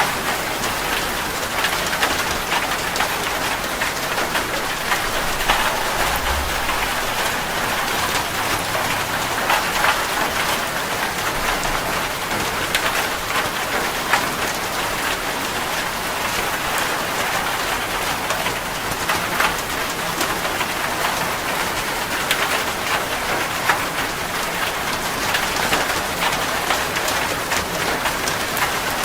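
Steady rain falling on a surface: an even hiss with many sharp individual drop ticks. A brief low rumble comes about six seconds in.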